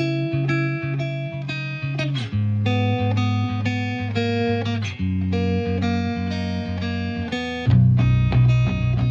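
Background music: a plucked guitar melody over steady bass notes, growing louder with a heavier bass near the end.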